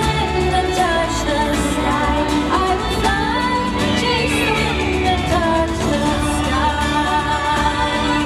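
Castle projection show's soundtrack played over loudspeakers: continuous music with a singing voice.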